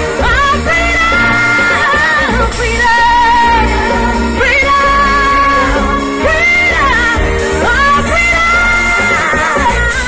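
A woman singing pop live into a microphone over a backing track, amplified through PA speakers, with a heavy bass. She holds long notes with vibrato and slides between them.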